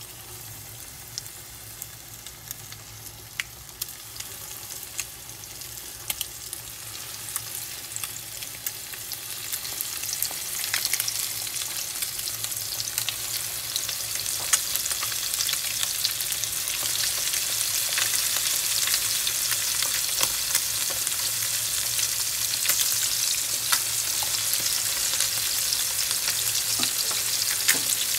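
Floured chicken wing lollipops frying in hot oil in a pan: a steady sizzle with scattered pops and crackles. It grows louder over the first ten seconds or so as more pieces go into the oil, then holds steady.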